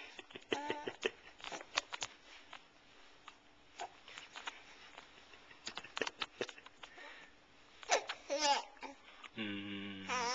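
A young baby babbling and cooing in short vocal bursts, one about half a second in and another around eight seconds in, among scattered small clicks. Near the end there is a low, steady hum about a second long.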